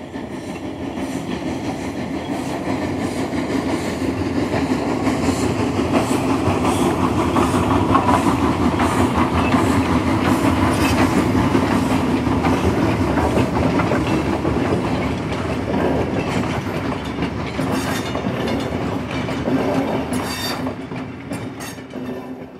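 A train running on track, a steady rumble with repeated clicks. It grows louder over the first few seconds and fades out near the end.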